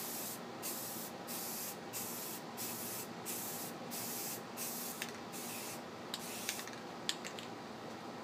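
Aerosol can of automotive primer spraying in short repeated hissing bursts, a little under two a second, which stop about six seconds in. A few sharp ticks follow near the end.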